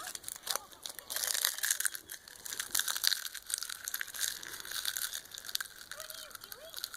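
Dry seaweed snack crackling and crunching as a child crushes it into her mouth and chews, a dense run of crisp crackles that is busiest in the middle.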